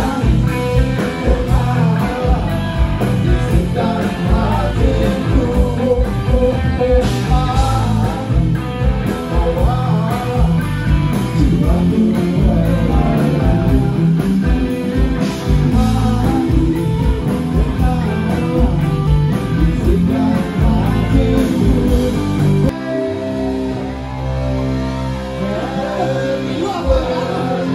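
Rock band music with a lead singer and electric guitar. About 23 seconds in it changes abruptly to a different, slightly quieter passage with held, steady chords.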